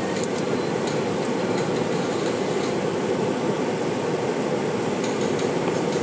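Steady rushing noise of automatic car-wash machinery heard from inside a car, unbroken, with faint scattered ticks on top.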